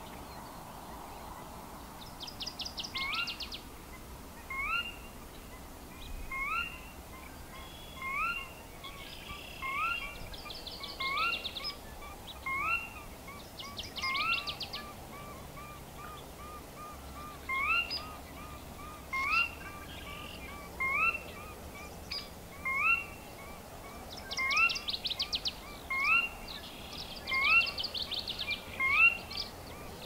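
Sora, a marsh rail, giving repeated rising whistled 'ker-wee' calls about every second and a half, with a brief pause midway. Another bird's short, high, buzzy trills break in several times.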